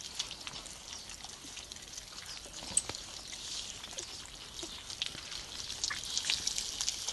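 A litter of young puppies eating raw minced meat from a hand, a dense patter of wet smacking and chewing clicks, with one sharper click about three seconds in.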